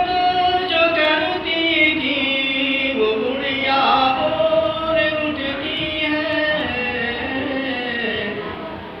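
A man chanting an Urdu naat, a devotional poem in praise of the Prophet, in a slow melodic style, holding long notes and sliding between pitches; the phrase trails off near the end.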